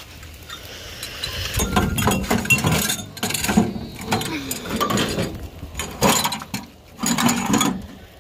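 Copper tubes of a wind chime clinking and clattering against each other and their metal dish as the fallen chime is handled, in irregular bursts of ringing knocks.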